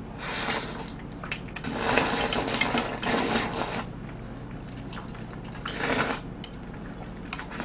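Slurping sauce-coated glass noodles from a bowl of tteokbokki, in three bursts. The longest runs about two seconds in the middle.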